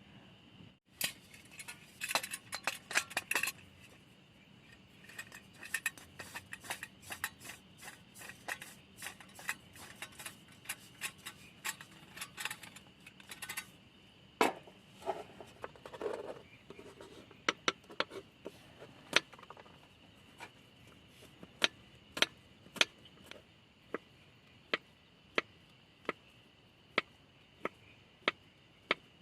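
Camp cookware and utensils being handled while preparing a meal: clinks and clatters, busiest in the first few seconds, then a run of evenly spaced knocks about once a second in the second half. A faint steady high-pitched tone sits under it.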